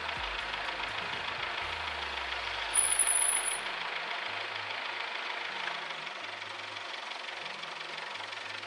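Car engine idling steadily with a fine rapid clatter, heard close up in the engine bay. About three seconds in there is a brief, shrill high-pitched squeak.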